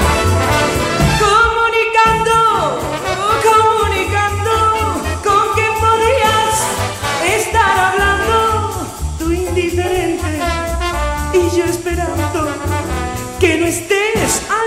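Big-band swing music with saxophones and brass, with a woman singing wordlessly over it.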